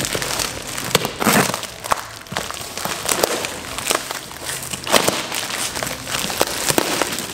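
Cardboard parcel wrapped in packing tape being cut and torn open by hand: irregular crinkling and crackling with sharp ripping snaps.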